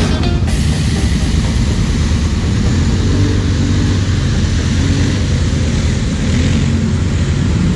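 ATV engines running steadily, one revving up and down as a quad churns through a deep mud pit.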